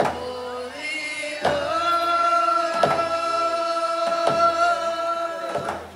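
Coast Salish hand-drum song: a group of voices singing long held notes together over frame hand drums struck in a slow, even beat, five strokes about a second and a half apart.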